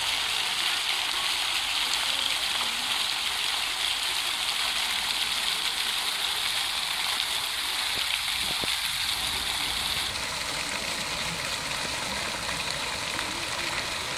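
Park fountain jets spraying and the water splashing down into the basin: a steady rush of falling water, a little softer from about ten seconds in.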